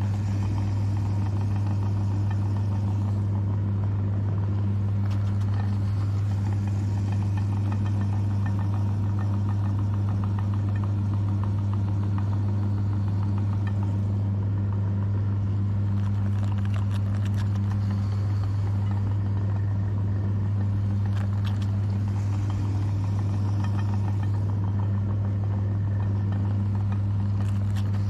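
Electric meat grinder running steadily with a loud, even motor hum, with occasional faint crackles as food goes through.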